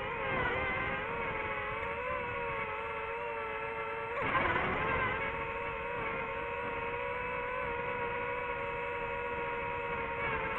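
DJI FPV drone's motors and propellers whining steadily in flight, with a louder, rougher surge of throttle about four seconds in before settling back to an even whine.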